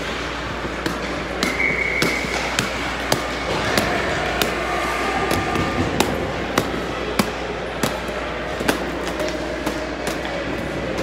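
Hockey pucks and sticks clacking on the ice and boards during warm-up, sharp knocks roughly one every half second to second, over the steady scraping of skates and the rink's hall noise.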